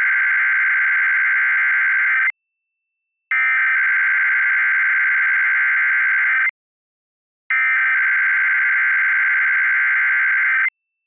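Emergency Alert System SAME header: the buzzing digital data tones sent three times in a row, with a short pause of about a second between bursts, to start a Required Weekly Test.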